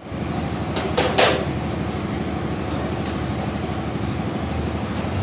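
Steady metalworking noise from a corded power tool on a steel door panel, with two sharp knocks about a second in.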